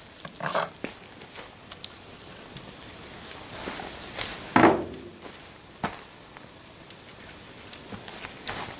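Lego ABS plastic burning under a red-hot steel muzzle brake: a steady hiss with scattered crackles and snaps, and one louder burst about four and a half seconds in.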